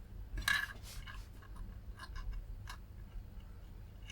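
Faint light clicks and short scrapes of small metal tools and parts being handled on a workbench, over a low steady hum.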